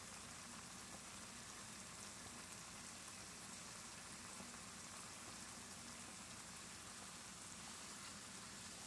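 Faint, steady sizzle of black beans simmering in their liquid in a skillet.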